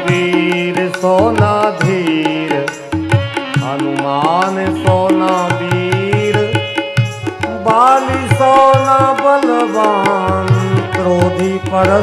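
Instrumental interlude of Hindu devotional kirtan music: a gliding melody line over a held drone, with a steady hand-drum beat.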